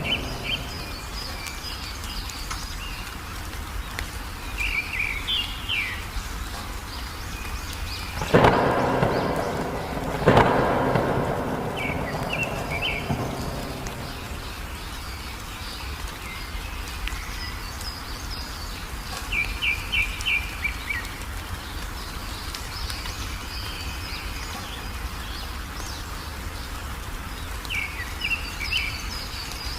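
Songbirds calling in short bursts of quick, high chirps that recur every few seconds over steady rain. Two sudden loud thunderclaps come about eight and ten seconds in, each dying away over a second or two.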